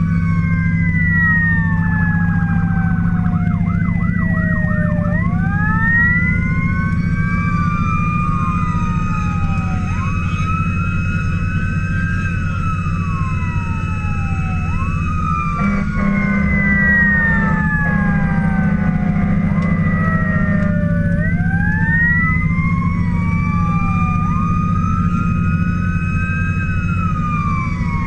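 Fire engine's siren wailing in long rising and falling sweeps, two tones overlapping, with a brief fast yelp a few seconds in. The truck's engine drones steadily underneath, heard from inside the cab on an emergency run.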